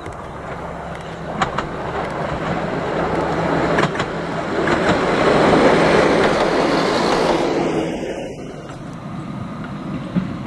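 Narrow-gauge diesel railcar passing close: engine running, with wheels clicking over rail joints now and then. The sound swells to its loudest about halfway through, then falls to a quieter running sound near the end.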